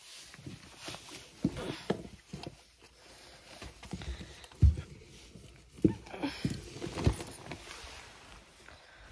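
Footsteps and handling knocks from a handheld phone carried while walking: irregular thumps, the loudest about halfway through.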